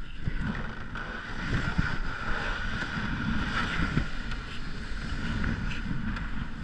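Steady rumble of wind on the microphone, with a few short knocks.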